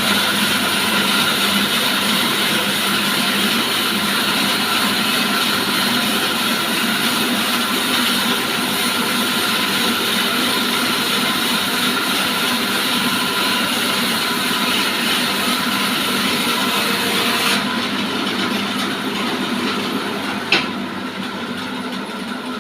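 Sawmill running and sawing timber: a loud, steady machine sound with a whine and a dense hiss. About three-quarters of the way through the high hiss drops away suddenly while the machine keeps running, and a single sharp click comes near the end.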